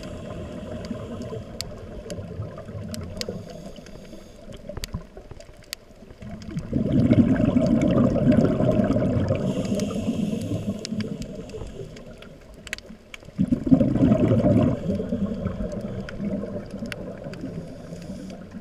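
Underwater sound from a GoPro housing: a scuba diver's exhaled bubbles rumble and gurgle twice, about seven seconds apart, each surge fading over a few seconds, over a steady low murmur with scattered sharp clicks.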